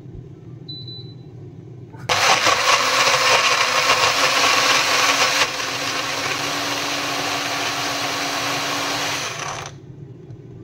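Nutribullet Baby personal blender running, blending lemon slices, ginger, chia seeds and water. The motor starts suddenly about two seconds in, becomes a little quieter and steadier with a low hum about halfway, and stops shortly before the end.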